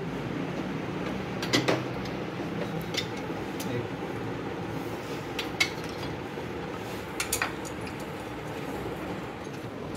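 Small steel valve-train parts clinking against a truck diesel's cylinder head as they are lifted out and set back by hand: a few sharp metal clicks, bunched together about one and a half seconds in and again about seven seconds in, over a steady workshop background.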